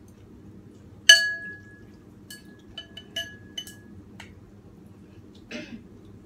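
Spoon and chopsticks clinking against a large ceramic soup bowl while noodle soup is stirred: one sharp ringing clink about a second in, then a run of lighter clinks, and a brief swish near the end.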